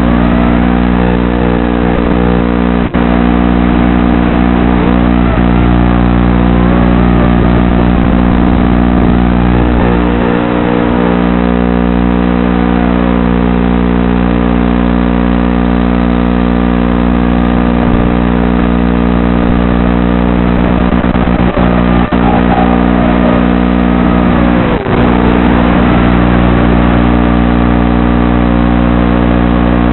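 Wizard X220 racing quadcopter's brushless motors whining over a steady buzzing hum, the pitch rising and falling as the throttle changes.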